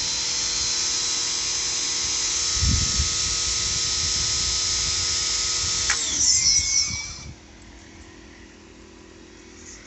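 Pressure washer running and spraying through a manifold of several 40-degree nozzles: a steady hiss of water jets over a steady whine. About six seconds in the whine falls in pitch and the spray stops, with a brief rattle.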